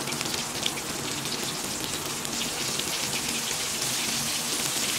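Coated chicken pieces deep-frying in hot oil in a kadai: a steady sizzle with dense fine crackling, growing a little louder and busier toward the end.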